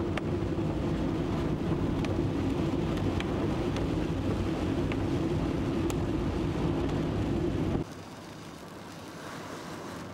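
Engine and tyre noise of a truck driving on a wet road, heard from inside the cab: a steady drone with a few sharp clicks. About eight seconds in it cuts off abruptly to a much quieter, even hiss.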